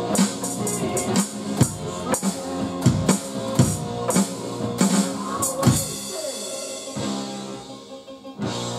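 A drum kit played along with recorded music, with regular kick, snare and cymbal hits. The drumming stops about six seconds in while the music plays on.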